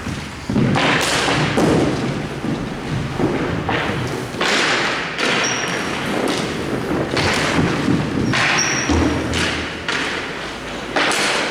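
A string of thuds and scuffing knocks, the first loud one about half a second in and others following every second or so, with two brief high squeaks partway through and near the end.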